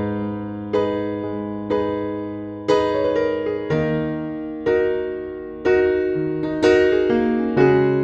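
Background music: a keyboard playing slow chords, one struck about every second and left to fade.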